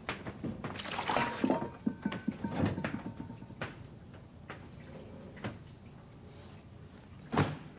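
Wooden kitchen things being handled and put away: a run of knocks and clatters of wood on wood, with a short noisy rush about a second in and one sharp knock near the end.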